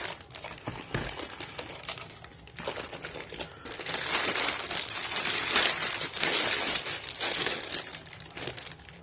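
Plastic wrapping crinkling and rustling as it is handled, with scattered light clicks. The crinkling is loudest in the middle stretch.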